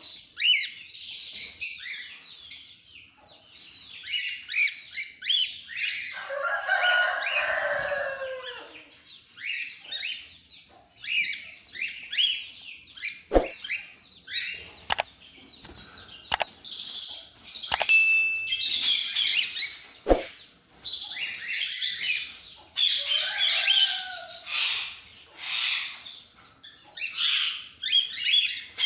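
A flock of cockatiels chirping and calling over one another without pause, mostly short high chirps. A few seconds in comes a louder, harsher, lower call that falls in pitch, and several sharp clicks sound through the middle.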